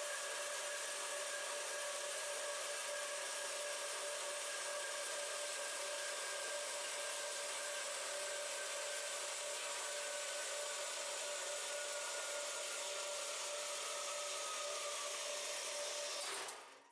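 Horizontal cutoff bandsaw running and cutting through square bar stock, a steady whirring hiss with a few held tones, one of which slowly drops in pitch. The saw stops suddenly near the end.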